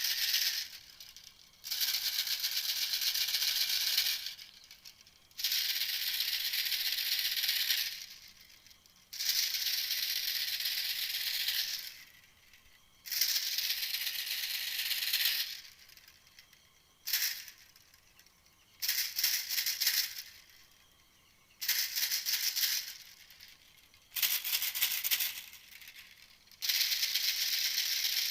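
A lure recording of an animal's rattling call: about ten bursts of a high, dry, rapid rattle, each one to three seconds long, with short pauses between them.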